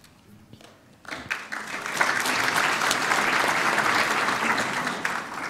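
Congregation applauding: a round of clapping that starts about a second in, builds quickly, holds, and fades near the end.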